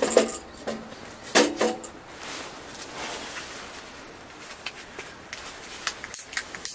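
Dishes and cooking utensils clinking: two ringing clinks in the first two seconds, then a soft hiss and a few light taps.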